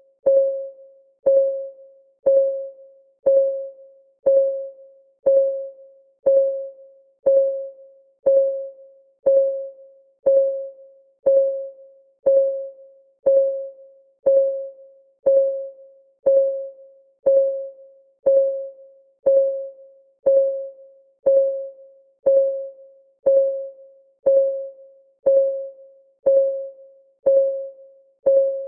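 Clock-ticking sound effect of a countdown timer: a short, pitched tick once a second, each dying away quickly, in an even, unbroken rhythm.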